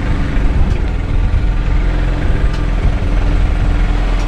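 Small gasoline generator running at a steady speed, an even low engine hum.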